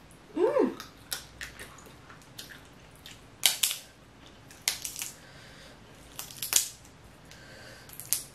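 Boiled crawfish shell being cracked and peeled apart by hand close to the microphone: a string of sharp crackles and snaps, with the loudest ones about three and a half, five and six and a half seconds in.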